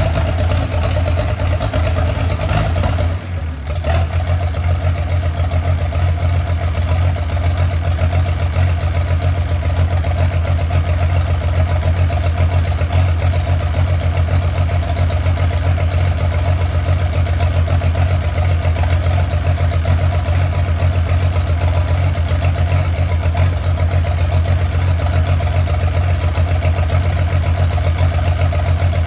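Allis-Chalmers D17 tractor's diesel engine running steadily just after an engine swap, with a brief dip about three seconds in.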